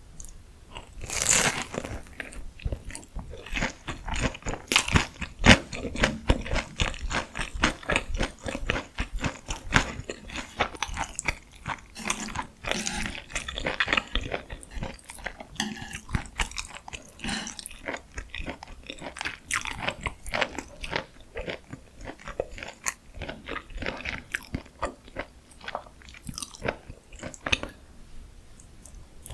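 Close-miked biting and chewing of crunchy deep-fried food, a rapid crackling crunch with each bite and chew. A louder crunch comes about a second in.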